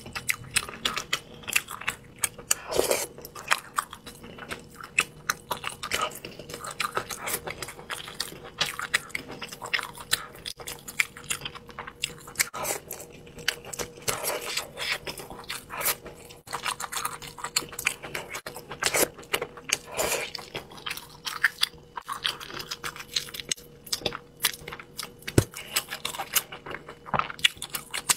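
A person chewing and biting mouthfuls of spicy braised fish close to a clip-on microphone, with a steady stream of irregular sharp mouth clicks and smacks.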